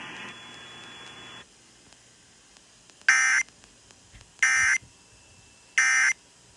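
Emergency Alert System end-of-message data bursts: three short, identical digital buzzes about 1.3 seconds apart, signalling that the alert is over. A faint hiss stops about one and a half seconds in, before the bursts.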